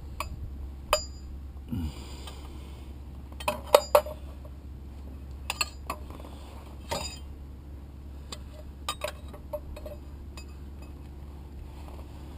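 Metal hand tools and car parts clinking and knocking at irregular intervals, about a dozen sharp clicks with the loudest pair near 4 seconds, over a steady low hum.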